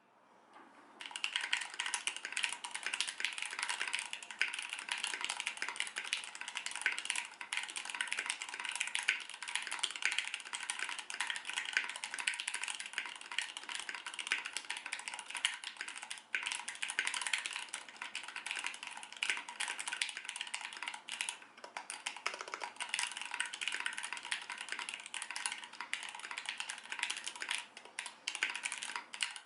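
Continuous fast typing on a mechanical keyboard with Gateron Ink switches, foam-dampened and with Zeal stabilisers: a dense stream of key clacks that starts about a second in, with a brief lull a little past two-thirds of the way through.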